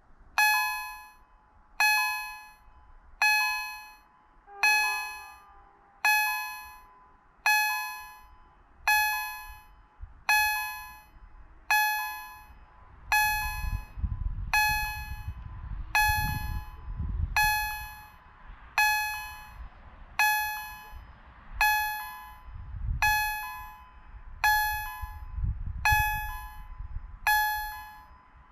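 Railway level-crossing warning bell ringing, one clear, fast-fading strike a little more than once a second, starting just after the beginning: the crossing has been activated for an approaching train. A low rumble comes and goes underneath in the second half.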